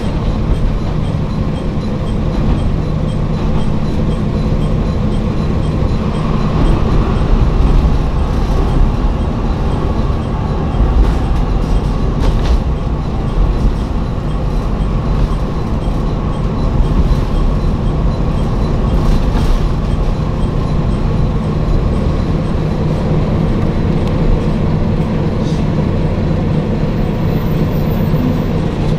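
Diesel railcar heard from inside its passenger cabin: the diesel engine's steady drone mixed with the rumble of the wheels on the track as the train runs along.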